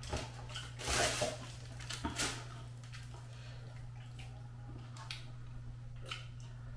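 Scattered rustles and clicks of eating from takeaway food: a metal spoon working in a bowl of rice, chopsticks and food containers being handled, over a steady low hum.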